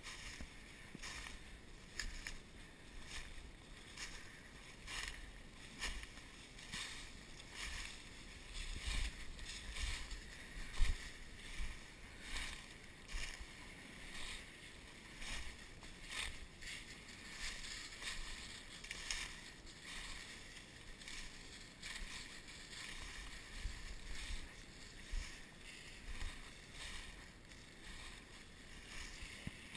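Footsteps crunching and swishing through dry leaves and low brush at a steady walking rhythm, with occasional low bumps.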